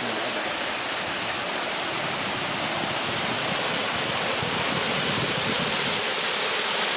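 Steady rush of water pouring over a waterfall, growing slightly louder toward the end.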